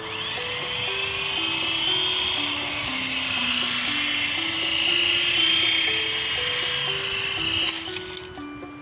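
Small electric motors and rotors of a toy remote-control helicopter drone whining at a high pitch: spinning up at the start, wavering in pitch in flight, and cutting off abruptly near the end. A simple background tune plays underneath.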